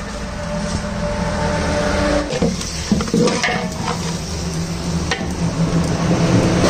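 A metal spatula stirring raw chicken pieces into masala in a large aluminium pot, scraping and knocking against the pot several times around the middle, with the food sizzling. A steady low hum runs underneath.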